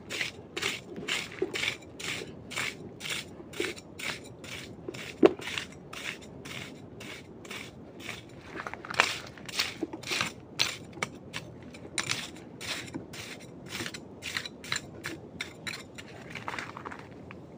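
Footsteps walking at an even pace, roughly two to three steps a second, with a sharper knock about five seconds in.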